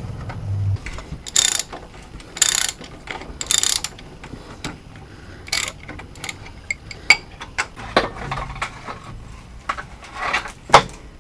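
Hand ratchet wrench clicking in short bursts as the bolts holding the downpipe to the turbo are loosened, with scattered clicks and knocks of the tool and metal parts between bursts.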